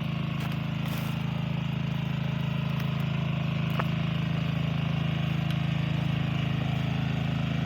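A small engine running steadily at an even speed, with a constant low hum that neither rises nor falls.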